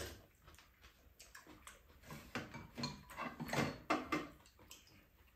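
Close eating sounds: soup slurped from a spoon and chewing, with short clicks and scrapes of chopsticks and spoons against bowls, busiest in the second half.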